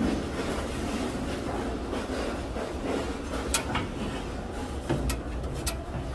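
Metal baking tins being slid and scraped across the floor of a small steel egg-bread oven with metal tongs. Sharp metal clicks come about three and a half seconds in and twice near the end, over a steady low rumble.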